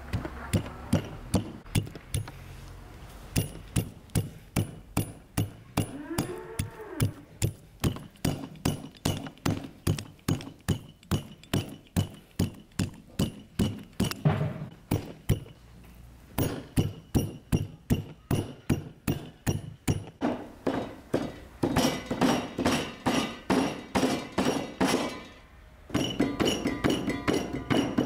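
Meat cleaver chopping raw meat and fat on a wooden stump chopping block, mincing it by hand: steady thunks about two to three a second, with a few short pauses and quicker strokes near the end.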